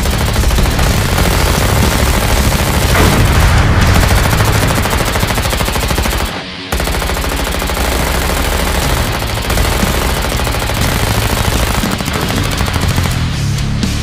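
Machine-gun fire sound effects: rapid, continuous automatic bursts, overlapping, with one short break about halfway through.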